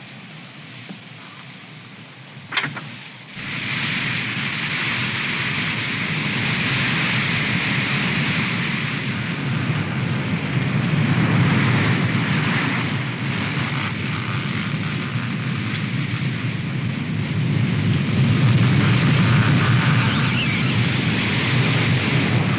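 Strong wind roaring through fir trees, coming in suddenly about three seconds in and then swelling and easing in gusts. Before it comes in there is a quieter stretch with one brief click.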